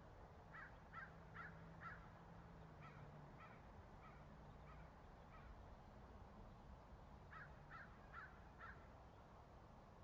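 Faint bird calls: a run of four short calls about half a second apart, fainter scattered calls, then another run of four near the end. A low steady hum runs underneath.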